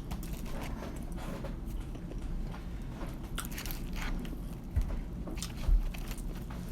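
Close-up biting and chewing of KFC fried chicken: irregular crisp, crunchy bites and chewing. Two dull low thumps come about five and six seconds in, the second the loudest sound.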